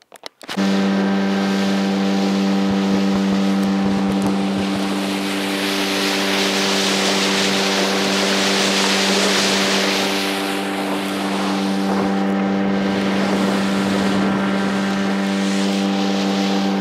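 Boat outboard motor running at a steady speed under way, its even engine tone mixed with rushing wind and water. It comes in suddenly about half a second in.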